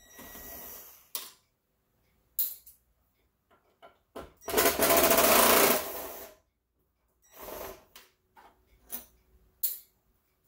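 Cordless drill/driver running in one steady burst of about two seconds near the middle, backing out the screws that hold a stove's front control switch, with a few short clicks and knocks around it.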